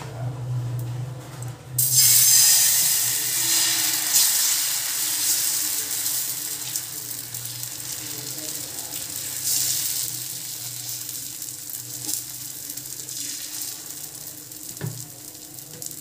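Wheat dosa batter hitting a hot, oiled tawa starts sizzling suddenly about two seconds in, loud at first and slowly fading as the ladle spreads it into a round, with a brief swell of sizzling again partway through. A low hum runs underneath.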